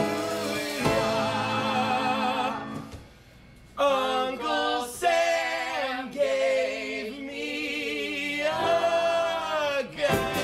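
A vocal trio, a male lead with a man and a woman, singing held notes with vibrato in close harmony. The voices drop away briefly about three seconds in, then return and build to a final held chord that cuts off just before the end.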